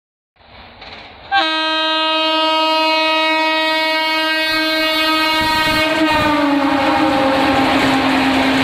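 Indian Railways train horn sounding one long blast as an express train approaches and passes at speed. The horn starts about a second and a half in, drops slightly in pitch as the locomotive goes by around six seconds in, and then sounds over the rushing clatter of the passing coaches.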